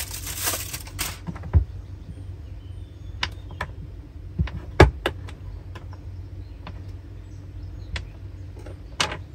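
Aluminium foil crinkling as a block of comté is unwrapped, stopping about a second in. Then a knife slicing the hard cheese on a wooden chopping board, with a handful of sharp knocks of the blade on the board, the loudest about five seconds in.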